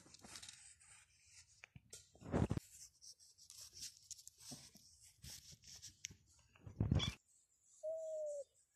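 Cat eating a scrap of meat: faint, intermittent scratchy chewing, with two louder rustles about two and a half and seven seconds in. A short single-pitched tone sounds near the end.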